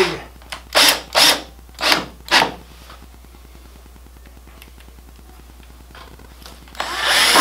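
Cordless drill driving a wood screw through a steel leg-leveler bracket into a 2x4 leg in about five short bursts as the screw seats. After a pause the drill starts up again near the end on the next screw.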